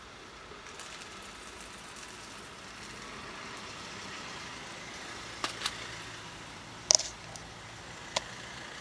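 Dry cat kibble poured from a plastic tub onto stony ground, a light crackling rattle, with a few sharp clicks in the second half, one double click louder than the rest. Steady traffic noise underneath.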